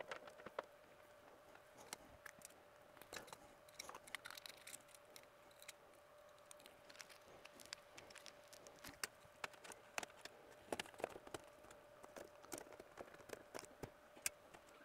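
Faint, irregular small clicks and handling noises of hands and tools working wires and breakers in an electrical breaker panel, over a faint steady hum.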